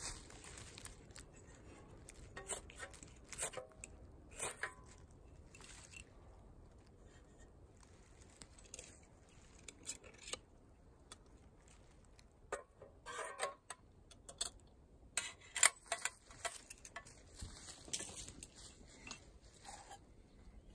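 Irregular handling noise: small clicks, taps and crinkling rustles of objects being picked up and moved, in scattered clusters with a sharper knock about fifteen seconds in.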